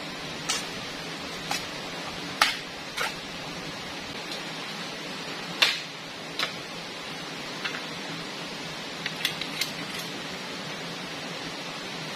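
Sharp, irregular knocks of a blade chopping into a green bamboo pole, about a dozen strikes, two of them much harder than the rest and a quick run of four near the end. A steady rush of flowing river water lies under them.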